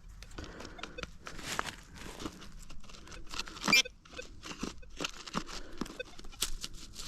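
Digging into dry, stony ground: irregular scrapes and crunches of a digging tool in soil, with one louder crunch about halfway through.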